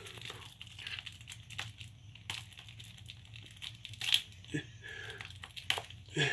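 Plastic shrink wrap on a Blu-ray case crinkling and tearing in short, scattered crackles as it is picked and peeled off in small pieces.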